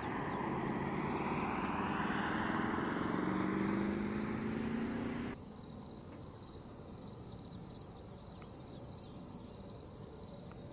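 Steady high chirring of crickets and other insects at a dawn cornfield. For the first half a vehicle's engine and tyre noise runs under it, its hum slowly rising in pitch, and it cuts off abruptly at an edit.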